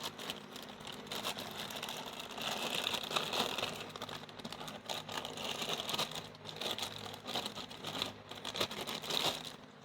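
Thin plastic packaging crinkling and crackling in irregular bursts as a small figure is unwrapped by hand. It stops just before the end.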